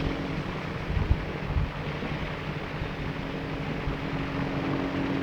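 Steady mechanical hum, as of a machine or fan running, with a couple of dull knocks about a second in.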